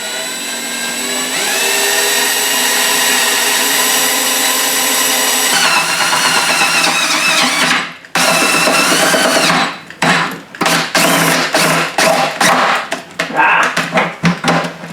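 Electric drill with a paddle bit boring a hole through the wall of a plastic bucket. The motor whines steadily for about eight seconds, its pitch dropping as the bit bites, then stops. It runs again briefly and finishes in a string of short on-off bursts.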